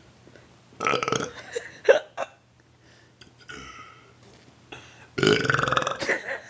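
A man burping: a couple of short burps about a second in, then a long, rough, rattling burp lasting about a second near the end.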